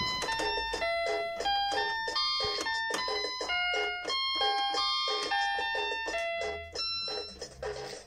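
Chad Valley toy electronic keyboard sounding single notes one after another, about three a second, in a simple up-and-down tune that stops shortly before the end.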